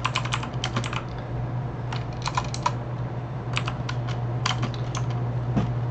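Computer keyboard typing in short bursts of keystrokes with pauses between them, over a steady low hum.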